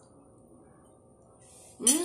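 Near silence, then near the end a woman's drawn-out 'mmm' of enjoyment, hummed with her mouth full as she tastes a bite of food.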